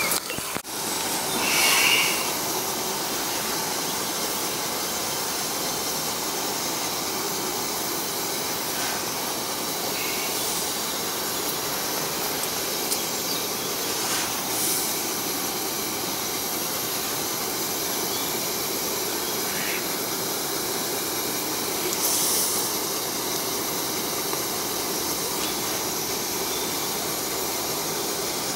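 Portable gas camping stove burner running under a kettle: a steady, even hiss. A few brief short sounds rise above it, the loudest about two seconds in.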